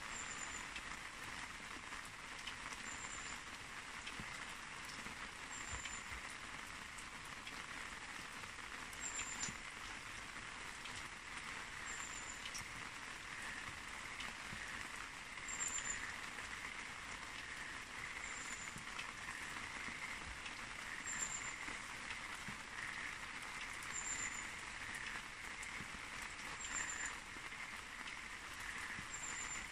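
Steady hiss of light rain, with a short high chirp repeating about every three seconds.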